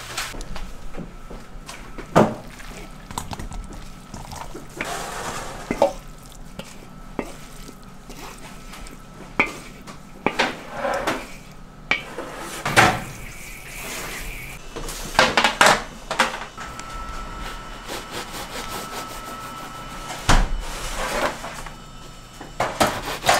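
Kitchen work clatter: utensils and dishes knocking at irregular intervals, with a few sharp, loud knocks among them.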